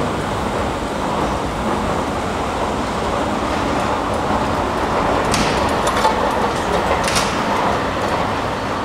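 Steady background noise of a railway station, with two short sharp clicks about five and seven seconds in.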